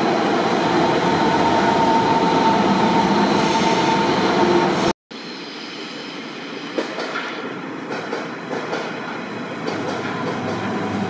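DB Class 481 S-Bahn electric trains arriving at platforms. First a loud train run with a steady whine inside a covered station hall; after a sudden cut about five seconds in, another train rolls in quieter at an open platform, with scattered clicks and knocks.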